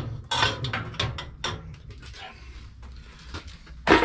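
Metal pots, pans and lids being handled on a gas stove: a run of knocks and scrapes, with one loud clank near the end.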